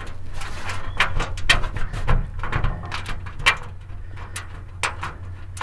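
Small irregular clicks and taps of a plastic bushing, washers and a bolt being handled and fitted by hand into a metal cargo-enclosure bracket, over a low steady hum.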